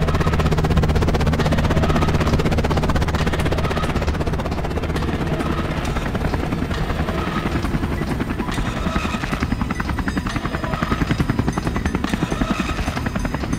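Helicopter rotor blades chopping rapidly and steadily, over a low engine hum that fades after about four seconds.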